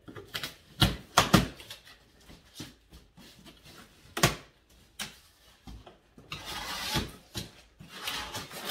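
Large cardboard carton being opened by hand: several sharp knocks and thumps against the box, loudest twice close together about a second in and again about four seconds in, then cardboard flaps scraping and rustling from about six seconds in.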